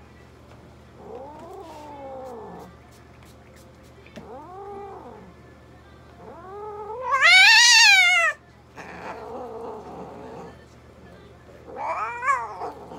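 Domestic cat yowling while its front paw is held and treated, about four drawn-out calls; the one in the middle is the longest and loudest, rising high in pitch and then falling.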